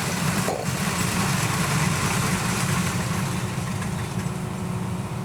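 Kubota DC-93G rice combine harvester working in the field: its diesel engine runs steadily with a low drone under a constant broad hiss from the machine.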